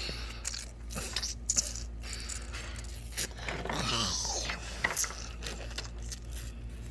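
Handling noise from plastic toy figures being moved and set down on a wooden table, with scattered clicks, scrapes and rubbing close to the microphone. A short sound falling in pitch comes a little before the middle.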